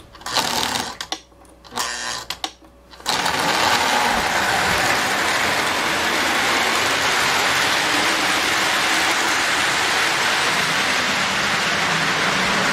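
Electric post-war model diesel locomotive pulling a train of cars: a few clicks and knocks, then about three seconds in the train gets going and runs steadily, its motor whirring and its wheels rattling on the track.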